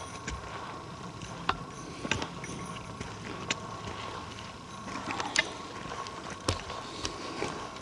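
Footsteps picking over rocks and forest litter: irregular crunches and knocks a second or so apart.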